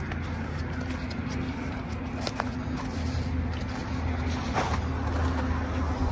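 A steady low mechanical hum, engine-like, over a haze of outdoor noise, with a few faint clicks.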